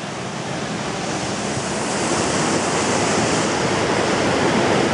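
Rain-swollen river rushing fast over rocks: a steady rush of floodwater, growing a little louder about two seconds in.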